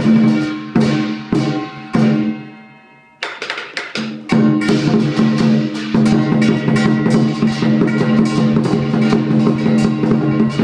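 Lion dance percussion: a large Chinese lion drum with clashing cymbals and gong. A few separate crashes ring and die away in the first three seconds, there is a short lull, and from about four seconds in a fast, steady beat takes over.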